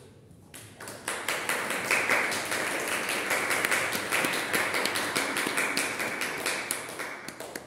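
A small group applauding by hand, a dense patter of many claps that starts about half a second in and dies away near the end.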